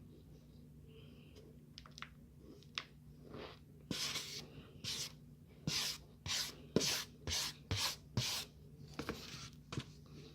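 Tapioca starch being rubbed and scraped in about a dozen short, dry strokes, starting about four seconds in and stopping shortly before the end.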